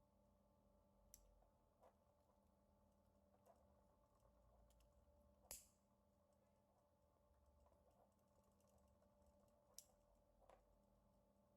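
Near silence with a few faint, sharp clicks scattered through it, the clearest about five and a half seconds in.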